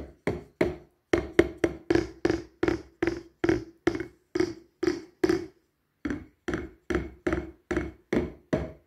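Wooden drumstick striking a pad of a Behringer XD80USB electronic drum kit in an even stream of about three hits a second, each hit with a short pitched ring, pausing briefly about halfway. The owner plays it to show the kit's problem: same-sounding hits register as soft or hard unevenly.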